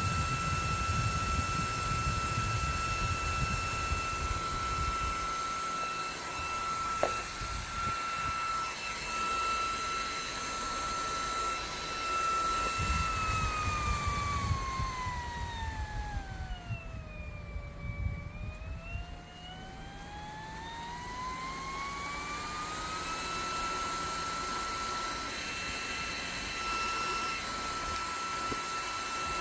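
Handheld electric fan running with a steady, high motor whine. About midway the whine slides smoothly down to about half its pitch and then climbs back to where it was. A low rumble of air comes and goes underneath.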